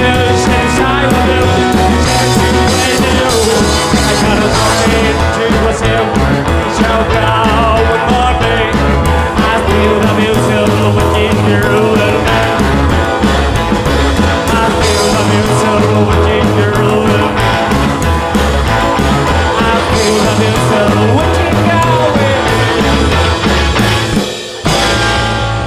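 Rock and roll background music with a steady beat.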